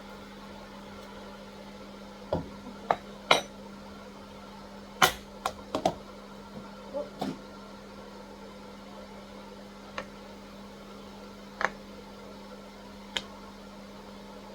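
A spoon knocking against a pot while chicken wings braising in cola are stirred: about ten separate knocks and clinks, the loudest about five seconds in, over a steady low hum.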